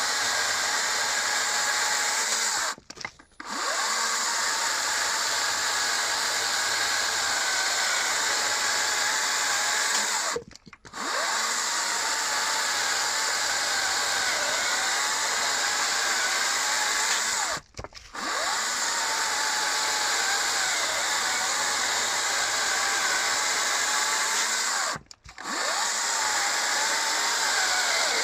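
Hychika CS40B 36 V brushless cordless chainsaw running at full speed while cutting through logs, its motor whine wavering in pitch under load. The sound breaks off briefly four times, roughly every seven seconds.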